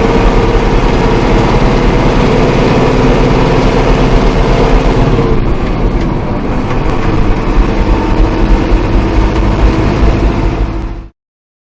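Heavy farm machinery engine running steadily with a low, even drone. Its tone changes about halfway through, and it cuts off abruptly near the end.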